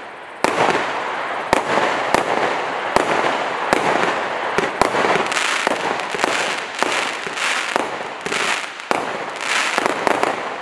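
Monkey Madness consumer fireworks compound box firing a rapid sequence of shots: sharp reports about every half second to a second, over a continuous dense crackle and fizz from the bursting crackling stars.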